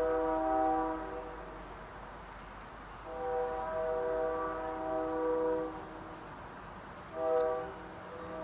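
Algoma Central Railway train's multi-note air horn sounding in blasts: the end of a long blast about a second in, then a long blast of about two and a half seconds, then a short blast near the end. With the next long blast following, this is the long-long-short-long grade-crossing signal.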